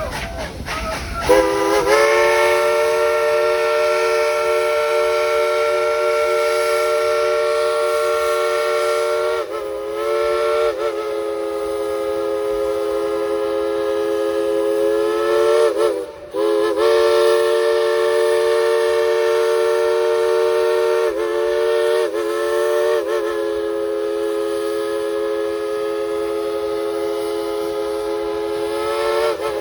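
Steam locomotive chime whistle blowing one long chord of several notes together. It swells in about a second and a half in, then holds, sagging briefly in pitch and catching again a few times, with one short break about halfway.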